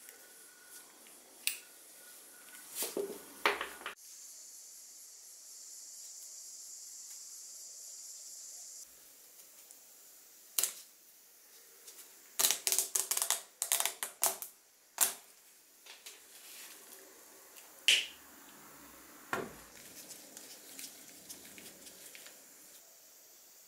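Close handling clicks and taps of small metal and plastic parts as the spout of a hand oiler is fitted. A run of quick sharp plastic clicks follows as the red plastic cap of a motor-oil bottle is twisted open and its spout is pulled up. A steady high hiss lasts a few seconds early on.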